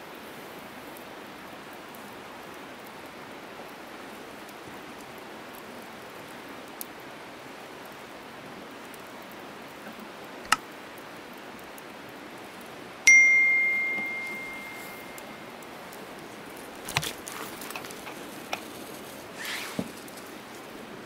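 A single clear metallic ding about halfway through, ringing on and fading over two seconds or so, from metal cookware being handled: the wire grill basket or a steel bowl. Around it, a steady outdoor hiss with a few sharp clicks, and near the end a short run of light metal clinks and rattles.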